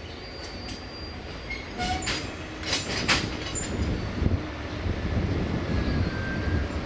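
Passenger coaches rolling slowly on the station track: a low rumble that grows louder, with a cluster of sharp wheel clicks over rail joints about two to three seconds in and faint brief wheel squeals.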